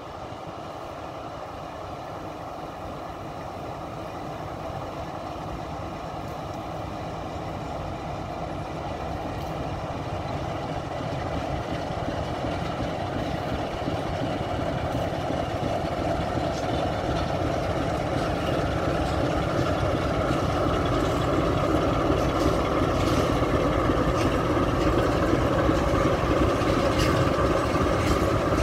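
Diesel-electric locomotive running as it hauls a train of tank wagons, its engine growing steadily louder as it draws near. A few sharp clicks near the end.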